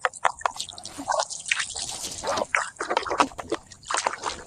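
Water dripping and splashing in irregular bursts as a mud-covered toy is washed by hand.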